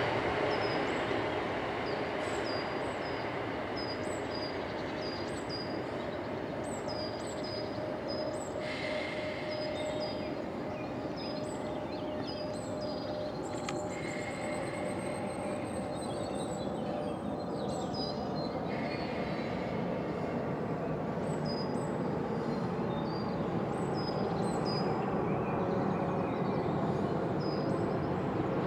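Electric multiple-unit passenger train running into the station and slowing to a stop, a steady rumble that grows slightly louder towards the end, with a high steady whine for about ten seconds in the middle. A small bird chirps repeatedly over it, about once a second.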